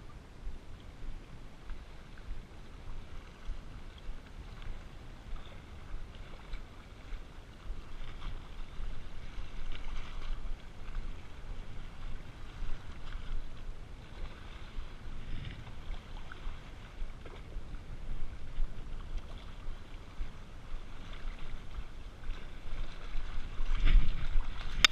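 Wind buffeting the microphone over small sea waves washing against a rocky shore, getting louder near the end.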